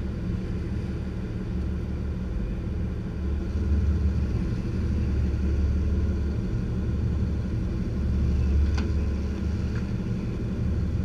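A lobster boat's engine running steadily: a low rumble that swells and eases a few times. A light click about nine seconds in.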